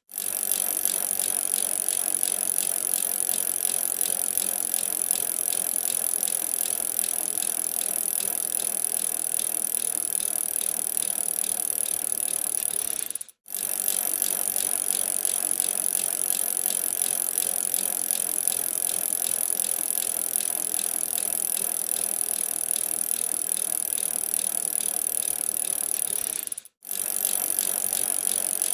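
Bicycle being ridden, its chain and freewheel making a steady, rapid mechanical ticking and rattle. The sound drops out for an instant twice and picks straight up again.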